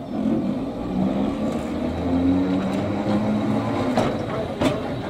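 Double-deck narrow-gauge electric tramcar pulling away, its traction motors giving a steady low hum that shifts slightly in pitch, with a few sharp clicks from the wheels on the track.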